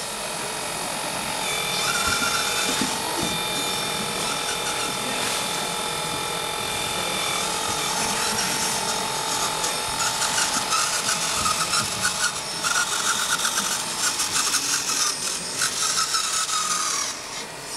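Small electric motors and gears of radio-controlled model construction machines whining as the excavator's arm moves, in steady tones that start and stop. From about halfway on, this changes to a rapid clicking, ratchet-like whir of small geared motors.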